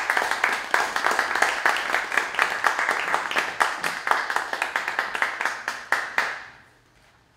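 Audience applauding with dense, uneven clapping that thins and fades out about six seconds in.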